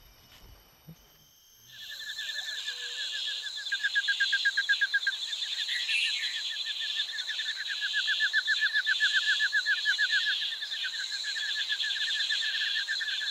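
Tropical forest ambience: a dense, steady chorus of rapidly pulsing animal calls, many per second, that starts about two seconds in after near quiet and keeps on without pause.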